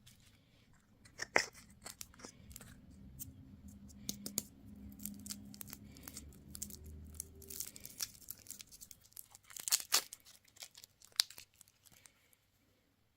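Candy or toy packaging being torn open by hand, with irregular sharp crackles and snaps of wrapper being pulled and crinkled.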